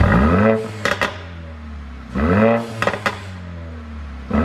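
Mercedes-Benz CLA45 AMG's turbocharged 2.0-litre four-cylinder engine blipped from idle three times, each rev rising and falling quickly, with a few sharp exhaust pops on the overrun after the first two. The pops come from an ECU tune made to produce them.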